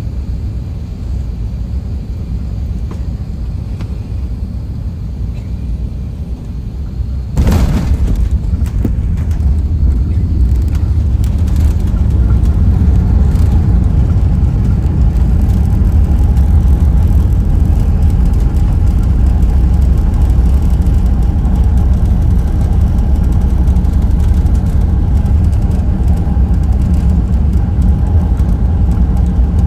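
Airbus A380 landing, heard from inside the cabin: a steady low rumble on final approach, then a sudden thump about seven seconds in as the wheels touch down. After that comes a louder, steady low rumble as the plane rolls out on the runway.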